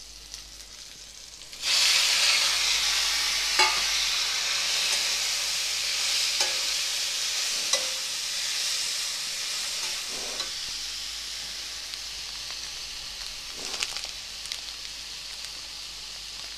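Sizzling in a kadai: a loud sizzle starts suddenly about two seconds in, as cooked fusilli pasta goes into the hot onion and tomato, and slowly dies down. A metal spatula stirs through it, with a few sharp scrapes and knocks against the pan.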